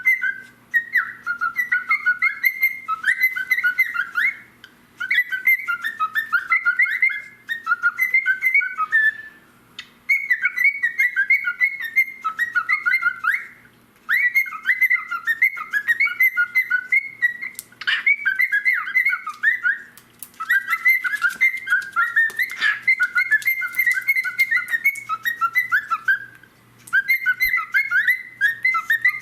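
Cockatiel warbling: a fast run of chirps and whistled notes in phrases of a few seconds, broken by short pauses.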